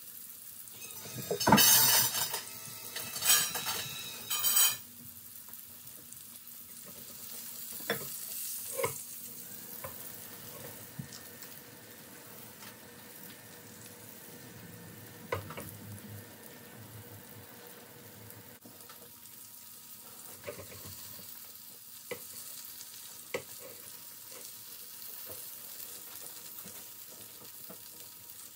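Green tomato slices frying in hot oil in a pan: three loud surges of sizzling in the first five seconds, then a steady sizzle. A few sharp clicks of a utensil against the pan come through it.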